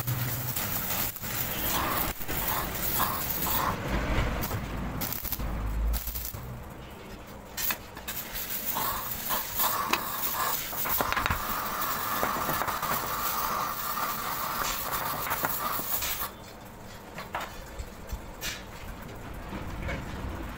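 Crackling hiss of stick (arc) welding as a steel ring is tacked onto square steel tubing, with short metallic clicks from handling the pieces. The noise drops to a quieter level about three-quarters of the way through.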